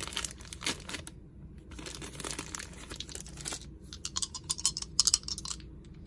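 Thin plastic bag crinkling and rustling as it is handled and opened, with a quick run of sharp clicks about five seconds in.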